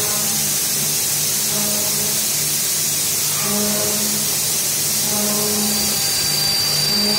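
Background music, a slow melody of held low notes, over a steady loud hiss.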